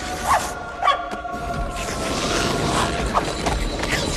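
Tense orchestral film score with held notes, joined about halfway through by a swelling clatter and rumble of train machinery that grows louder.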